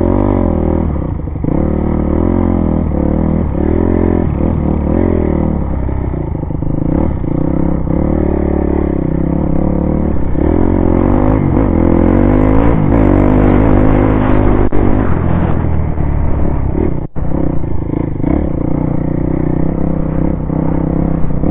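Honda CRF250X dirt bike's single-cylinder four-stroke engine, heard close up from on the bike, revving up and down again and again as it is ridden over grass and mud. The engine sound drops out for an instant near the end.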